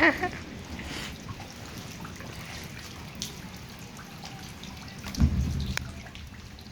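Rain falling and dripping, with scattered drops ticking close by. A short low rumble comes about five seconds in.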